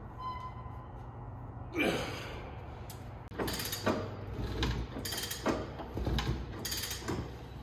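Steady low engine hum, with a run of irregular clunks and rattles starting about two seconds in.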